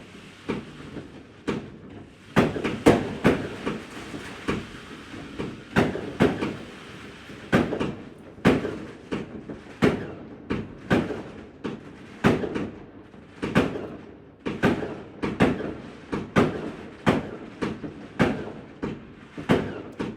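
Fireworks and firecrackers going off, a long irregular string of sharp bangs, often in quick clusters. They come about one to two a second from about two seconds in.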